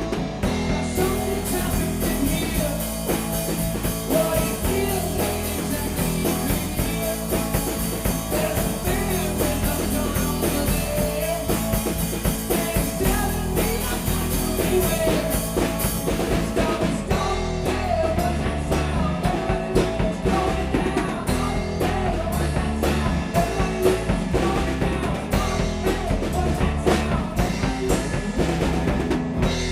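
Rock music with drum kit, guitar and singing, playing with a steady beat.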